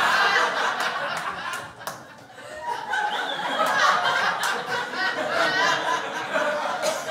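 Live audience laughing at a joke: the laughter fades about two seconds in, then builds again.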